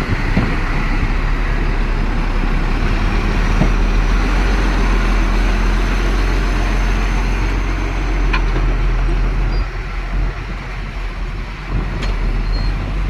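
Heavy diesel earthmoving machinery running steadily with a low, even drone, with a few short sharp clicks.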